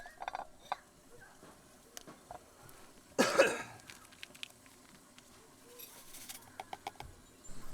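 A single cough about three seconds in, amid faint scattered clicks and taps.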